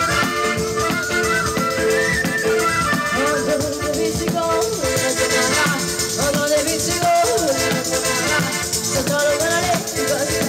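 Live folk dance music led by a tamburello, a large frame drum whose jingles rattle in a fast steady rhythm, with guitar, a held drone note and a wavering melody line over it.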